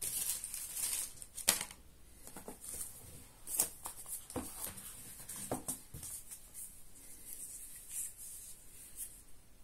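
Rustling of plastic wrap and a cardboard box as a smartphone is unpacked by hand, with a few light knocks and clicks, the sharpest about a second and a half in.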